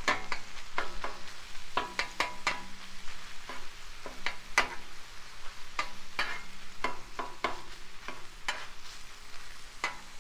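Ground beef and onion sizzling on a Blackstone flat-top griddle, with a metal utensil clacking and scraping against the steel cooktop in irregular strokes, two or three a second, as the meat is broken up and stirred.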